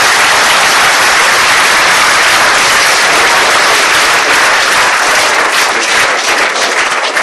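Large audience applauding, a dense steady clapping that begins to thin into separate claps near the end.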